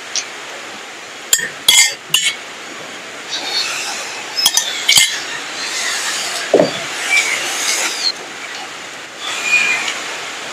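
Spoon and tableware clinking against metal and ceramic plates during a meal: a few sharp clinks in two short clusters, then a duller knock on the table.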